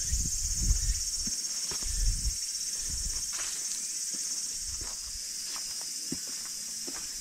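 A steady high-pitched insect chorus, with a person's footsteps through grass and over dry ground, heaviest in the first two seconds and then a few scattered steps.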